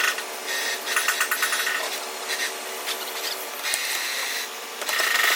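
A power tool running in bursts of about a second, starting and stopping several times, with a rasping, rubbing quality.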